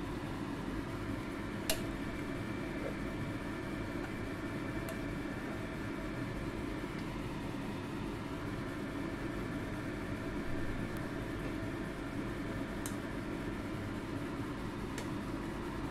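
Steady rushing kitchen hum, with a few sharp clicks of a metal ladle knocking a ceramic soup pot while stirring, the loudest about two seconds in.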